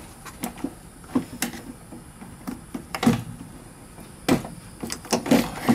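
Hands working a plastic fuel pump module up out of a fuel tank opening: scattered clicks, knocks and rubbing of plastic and hose, with a louder knock about halfway through and a quick run of knocks near the end.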